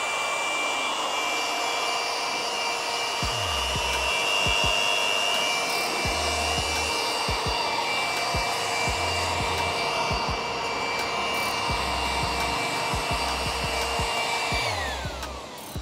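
Asian Paints TruCare 500 W handheld electric air blower running at full speed: a steady high motor whine over rushing air. Near the end the whine falls away as the motor winds down.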